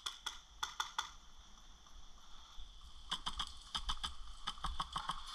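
Scattered sharp clicks of airsoft fire: a few about a second in, then a quicker, irregular run of them from about three seconds in.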